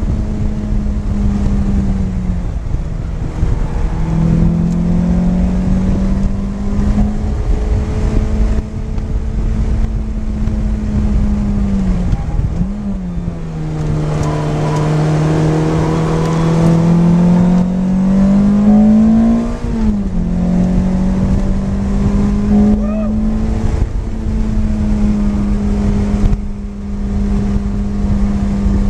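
Lotus Elise's four-cylinder engine heard from inside the cabin while lapping a track. The engine holds fairly steady revs, gives a quick blip about 13 seconds in, then pulls for about five seconds with its pitch rising steadily before an upshift drops it again. Road and wind noise run underneath throughout.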